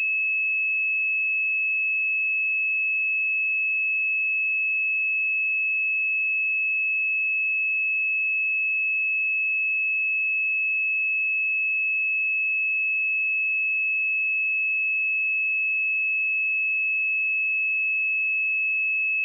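A steady 2592 Hz sine-wave test tone: one pure, high-pitched beep held at a constant level, used to check speakers or headphones.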